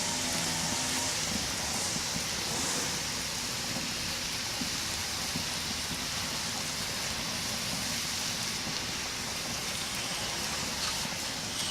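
Food sizzling on a Weber Genesis gas grill: a steady, even frying hiss.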